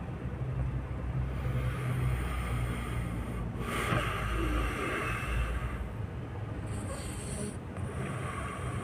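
A person snoring, with slow rumbling breaths that swell and fade. A rushing hiss comes in about three and a half seconds in and lasts about two seconds.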